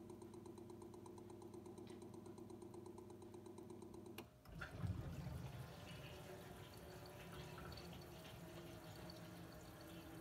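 The TwinDos dosing pump of a Miele WKR 771 washing machine ticking quickly and evenly over a low hum as it draws in flushing water for compartment two during the TwinDos maintenance cycle. About four seconds in this gives way to water trickling and dripping into the drum.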